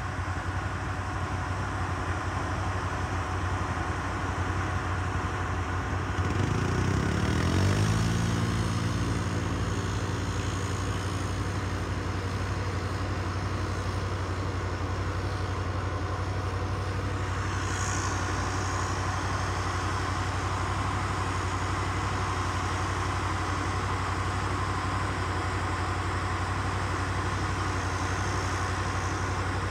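Can-Am 6x6 ATV engine running under load, rising in pitch about six seconds in as it speeds up, then holding a steady drone while it breaks trail through deep snow.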